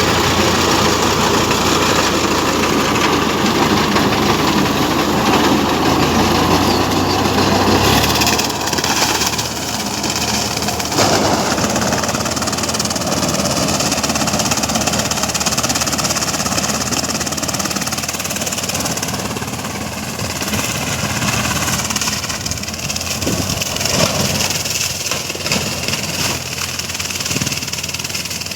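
Swaraj 744 FE tractor's three-cylinder diesel engine running steadily, its deep rumble dropping away about eight seconds in.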